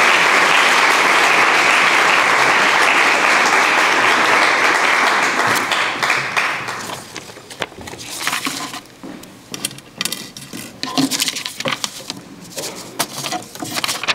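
Audience applause that dies away about halfway through, followed by sheets of paper rustling and small knocks at the lectern microphone.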